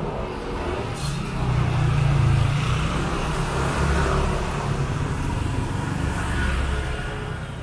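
Motorbike engines running as they ride past close by, with general street noise. The sound swells about a second and a half in, is loudest around two and four seconds in, and eases near the end.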